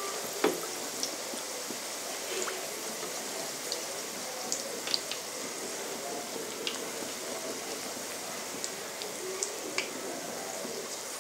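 Chicken box patties frying in hot oil on medium-to-low heat: a steady sizzle with scattered small pops, and a louder click about half a second in.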